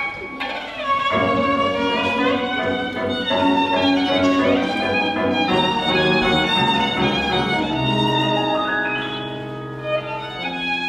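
Violin playing a melody, bowed with vibrato, over grand piano accompaniment. In the last few seconds the music eases into longer sustained low notes.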